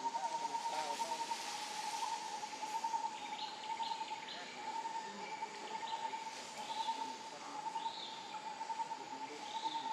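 Outdoor ambience among trees: a continuous, slightly wavering high whine, with short bird-like chirps scattered over it.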